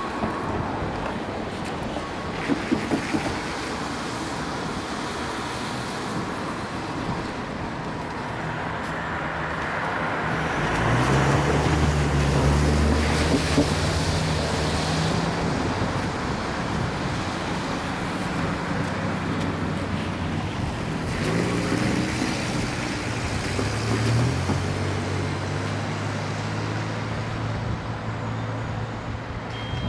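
Slow-moving freight train passing, with a steady rumble of wheels on rail and a few sharp clicks about three seconds in. A diesel locomotive engine comes up loud about a third of the way in, drops back, then rises in pitch again about two-thirds of the way in and keeps running.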